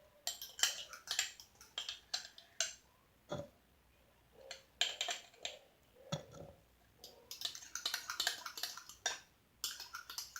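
Slime mixture being stirred and worked in a container: irregular runs of small clicks, taps and sticky scraping, in bunches with short quiet gaps between them.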